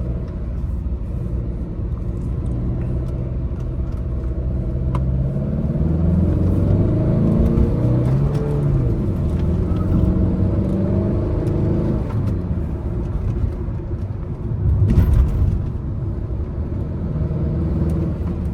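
Tata Nexon's 1.5-litre four-cylinder Revotorq turbo diesel engine pulling on the road, its pitch rising and falling several times as it revs and changes gear. A short loud thump comes about fifteen seconds in.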